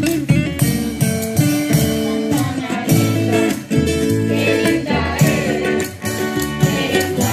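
Traditional Salvadoran folk music: guitars played to a steady dance rhythm, with voices singing.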